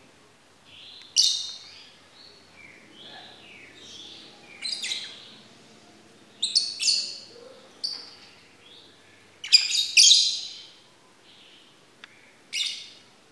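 Lovebirds calling: loud, high-pitched chirps every second or two, with fainter chattering calls in between.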